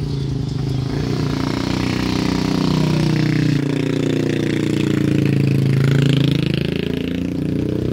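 Car engine working up a steep, rough gravel slope, its note dipping and then rising again as it pulls.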